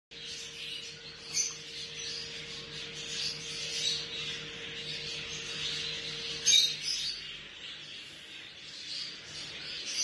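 Budgerigars chirping continuously in a high, fluttering chatter. Two sharp clicks stand out, about a second and a half in and again around six and a half seconds.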